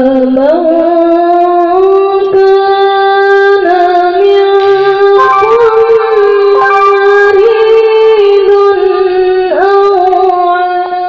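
A man's voice reciting the Qur'an in melodic tilawah style, holding one long, high, ornamented phrase almost unbroken. It glides down and fades at the end.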